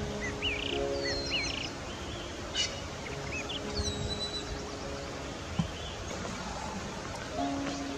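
Small birds calling in short chirps and curling whistles, most of them in the first half, over a steady hiss and soft background music of held low notes.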